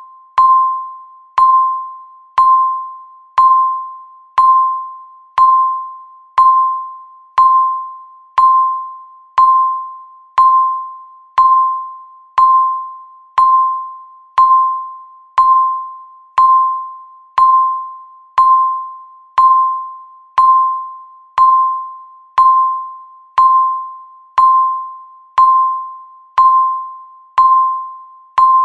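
Countdown timer beeping once a second: the same single clear tone each time, starting sharply and fading away before the next.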